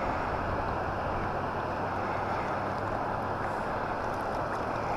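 Steady rushing of water from the dam outflow, an even roar that does not change.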